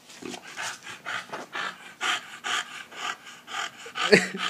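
English bulldog panting rapidly, about four breaths a second, with one louder, sharper breath near the end.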